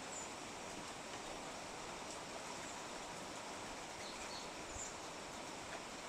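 Steady hiss of rain falling, with a few faint, brief high bird chirps.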